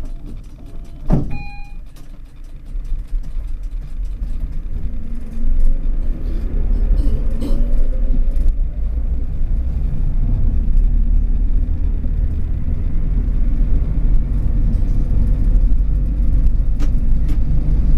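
Tram pulling away from a stop: a click and a short beep about a second in, then the rumble of wheels on rails builds, with a rising electric traction-motor whine as it accelerates, settling into a steady low rumble at running speed.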